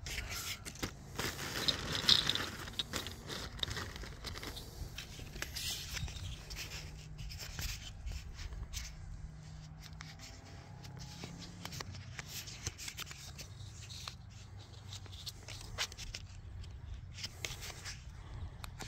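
Black plastic drip irrigation tubing rubbing, scraping and clicking as hands work it close to the microphone, with many small irregular clicks over a low steady rumble.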